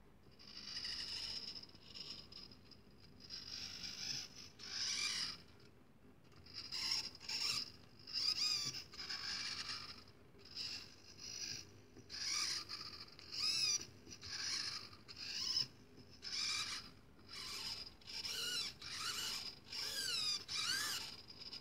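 RC servo's geared motor whining in short repeated bursts, each under a second, as it swings back and forth under a hand-turned potentiometer knob, tilting a wooden labyrinth board through its mount. In some bursts the pitch wavers up and down.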